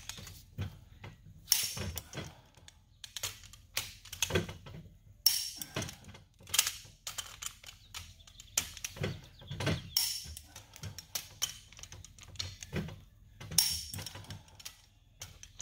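Torque wrench being worked on the bolts of a Dana 80 limited-slip carrier case, run down in a star pattern: irregular sharp clicks and knocks every second or so.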